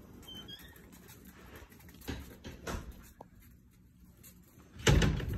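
Light scuffling and patter with a few faint high squeaks as basset hound puppies play on concrete, then one loud thump near the end.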